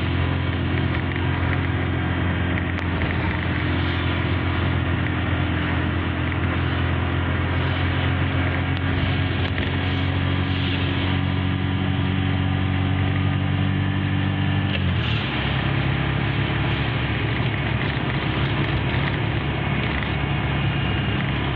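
A moving vehicle's engine hum and road noise, steady throughout, with the engine note changing about fifteen seconds in.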